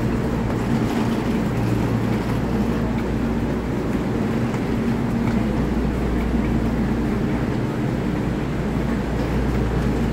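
EMU3000 electric multiple unit at the platform, its onboard equipment humming steadily with a few constant low tones and no change in pitch.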